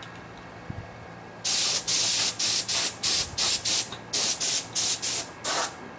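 Short blasts of spray hissing from a spray gun aimed at a V8 engine block, about a dozen in quick succession at roughly three a second, starting and stopping sharply.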